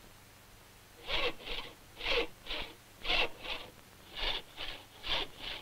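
Hand crosscut saw cutting a board: about ten short back-and-forth strokes, roughly two a second and grouped in pairs, starting about a second in.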